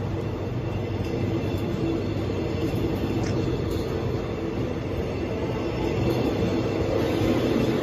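Passenger train coaches rolling past a station platform: a steady rumble of wheels on rail, getting a little louder near the end.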